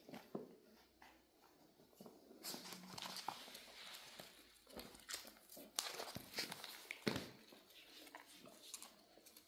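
Miniature dachshund puppies play-wrestling on a woven rug: faint scuffling and rustling with scattered claw clicks and soft knocks, the sharpest a little after six and seven seconds in.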